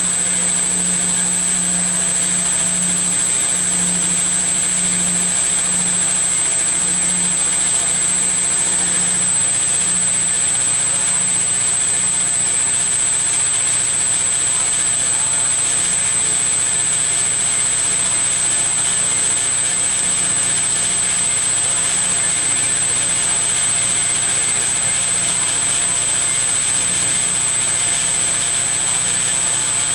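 Geocam 480 MKII bandsaw running steadily, its blade cutting through a meteorite under flowing coolant, with a constant high whine over the running noise. A low hum fades out about ten seconds in.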